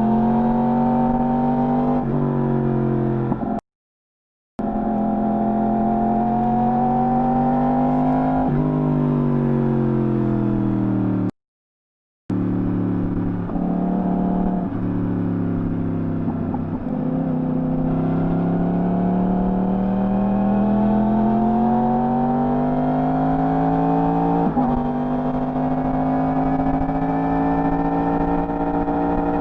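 Yamaha R1 sport bike's stock-exhaust inline-four engine riding through gears, its pitch rising under throttle and falling at shifts and off-throttle, with a sharp rise near the end. The sound cuts out briefly twice, about 4 and 11 seconds in.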